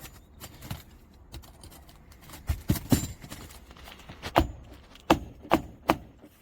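Hammer striking a roof snake, a steel shingle-nailing bar worked under a roof shingle, to drive a roofing nail. There are a few light taps, then about seven sharp metallic blows in an uneven rhythm over the second half.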